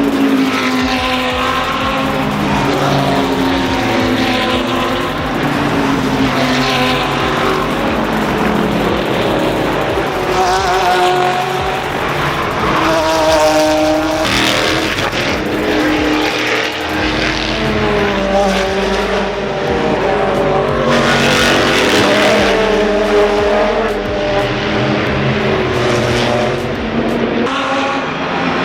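Race car engines at full song on a street circuit, their pitch climbing and dropping again and again as cars accelerate, shift and brake past.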